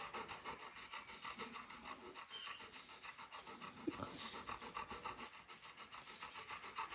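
A large Labrador retriever panting rapidly and rhythmically, with a breathier swell every couple of seconds. The dog is frightened and shaking, so this is stress panting rather than panting from heat or exercise.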